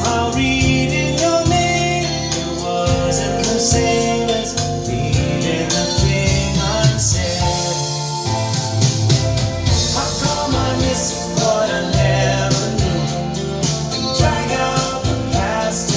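Pop song with singing, bass and drums, played back from a chromium cassette tape on a hi-fi cassette deck set to 120 µs equalization.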